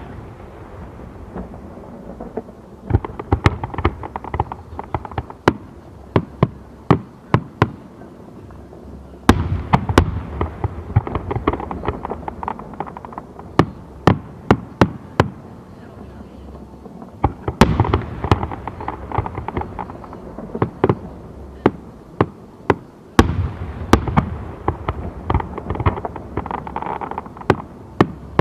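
Aerial fireworks shells bursting in rapid succession, heard from about 500 m away: sharp bangs over a continuous rumble and crackle. Dense new volleys set in about 9, 17 and 23 seconds in.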